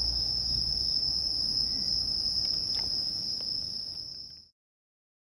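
Crickets trilling together in one steady, high, unbroken note, with a couple of faint handling clicks, fading out and cutting to silence about four and a half seconds in.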